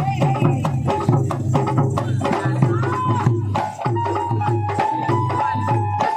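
Live Bhim geet, an Ambedkarite devotional song: a woman sings a gliding, held melody over a fast, steady drum beat with percussion accompaniment.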